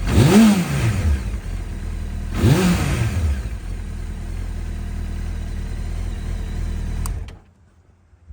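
Honda CBR900RR (SC33) Fireblade's inline-four engine blipped twice, the revs rising and falling quickly each time, then idling steadily until it is switched off about seven seconds in.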